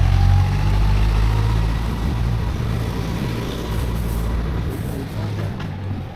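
Motor vehicle engine running with a low rumble, loudest at first and slowly dying away toward the end, a faint whine above it.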